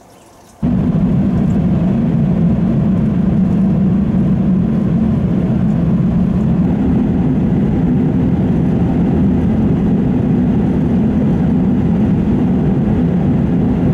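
Car driving along a road: steady low rumble of tyre and engine noise that starts abruptly about half a second in.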